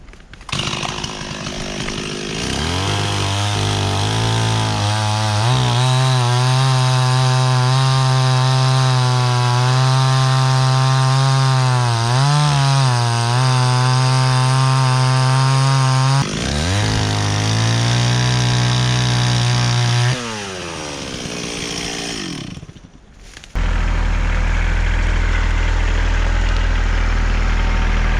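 Stihl chainsaw starting up and running at high revs, its pitch dipping and shifting as it cuts through a log, then cutting off about 23 seconds in. A lower-pitched engine idling steadily follows right after.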